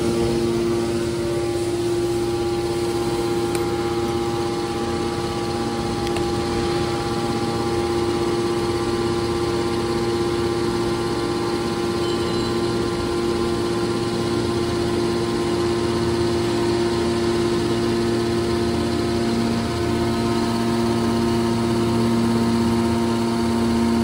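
Hydraulic baler's electric motor and pump unit running with a steady hum of several fixed tones that hold the same pitch and loudness.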